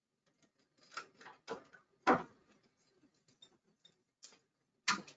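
A handful of irregular clicks and knocks. The loudest is a thump about two seconds in, and another pair comes near the end.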